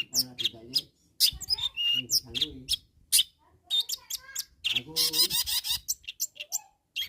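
Long-tailed shrike (cendet) singing a fast, varied song of sharp clicking notes and harsh chatter, in bursts broken by short pauses.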